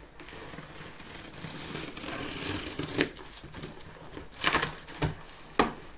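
Cardboard shipping box being pulled and torn open by hand: rustling and crinkling of cardboard, with a few sharp snaps and cracks in the second half.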